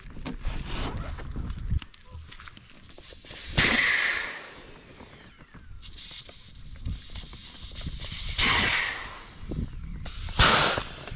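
Air hissing out of a Tobin Sports Wavebreak inflatable canoe as it is deflated, in three long rushes, with handling bumps and rustles at the start.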